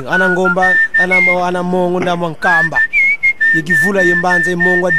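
Music with a whistled tune held in long, steady notes that step between pitches, over a voice singing lower down.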